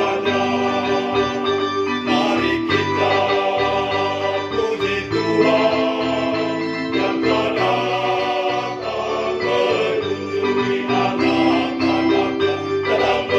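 Church choir singing the Mass's opening hymn with instrumental accompaniment, several voices holding long notes over a steady bass line.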